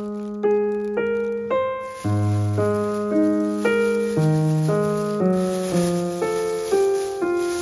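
Background music: a keyboard melody of evenly spaced struck notes, about two a second, each dying away.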